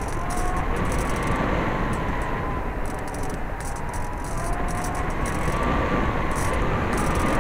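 Electric motor and propeller of an FPV model plane whining in flight, with a steady rush of wind on the onboard microphone; the whine wavers slightly in pitch.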